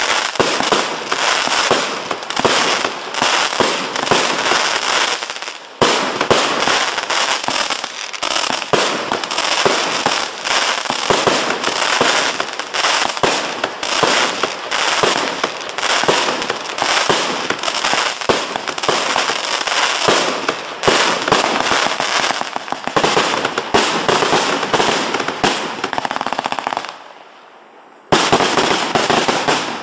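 A 300-shot, 38 mm fireworks battery firing shells in rapid succession: a dense run of launch thumps, bursts and crackle, many shots a second. About 27 seconds in it drops to a brief lull, then a last volley of shots goes off near the end.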